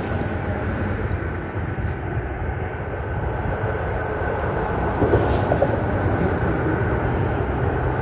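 Steady low rumble of road traffic crossing a highway bridge.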